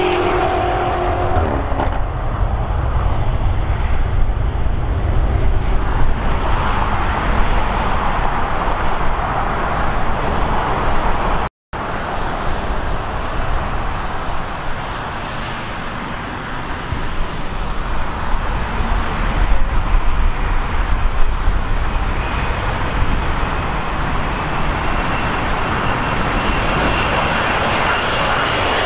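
Jet airliner engines, a continuous roar with a deep rumble underneath. A faint high whine slowly rises in the second half, and the sound cuts out completely for a split second a little before halfway.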